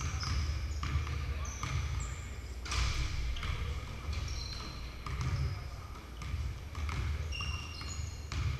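Basketballs bouncing on a hardwood gym floor at an uneven rhythm, with sneakers giving short high squeaks on the court between the bounces, echoing in a large gym.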